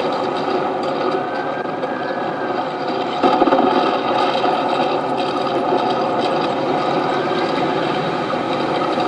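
Steady mechanical whirring and grinding with a fine rattle, swelling briefly louder about three seconds in.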